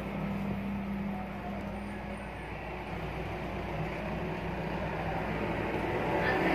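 Steady background rumble and hiss, with a low hum in the first two seconds or so that then fades into the rumble.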